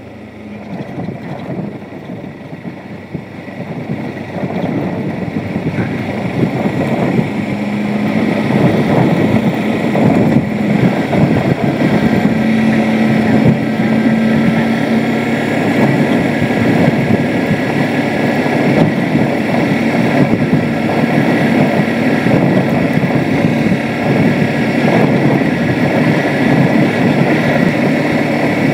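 Motorcycle engine running at a steady cruising speed on a dirt road, with wind rushing over the microphone; the sound grows louder over the first several seconds and then holds steady.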